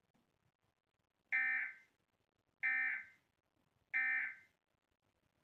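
Emergency Alert System end-of-message code: three short, identical bursts of shrill digital data tones, evenly spaced about 1.3 seconds apart, signalling the end of the alert.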